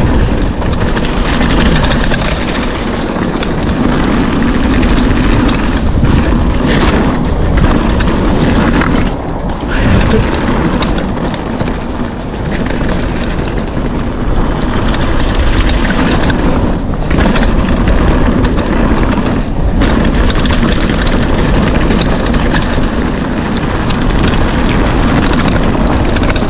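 Wind buffeting a ride camera's microphone over the rattle and tyre noise of a full-suspension mountain bike riding down a flow trail, a steady loud rush with constant clattering and a couple of short lulls about ten seconds in.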